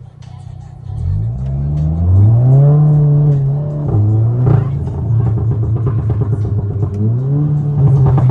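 Volkswagen Golf R's turbocharged 2.0-litre four-cylinder engine revving. The pitch climbs about a second in and holds high, drops back briefly with a sharp pop around four and a half seconds, then climbs and holds again near the end.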